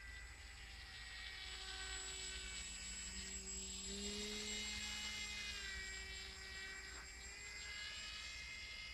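Radio-controlled model trike's motor and propeller humming as it flies past, growing louder as it comes overhead and dropping in pitch as it moves away.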